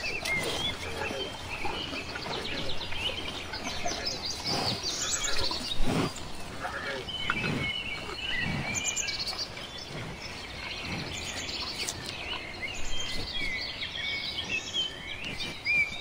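Many birds chirping and calling over one another in a steady chorus, with a few short low sounds under them between about six and nine seconds in, the loudest near six seconds.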